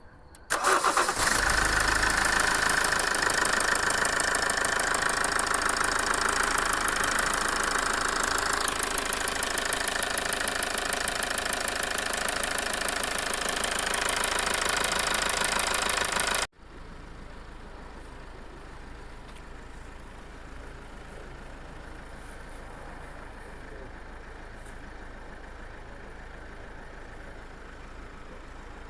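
Toyota 2.2 diesel engine starting and running at idle with a dense, steady clatter. About halfway through, the sound cuts abruptly to a quieter, steady run of the engine.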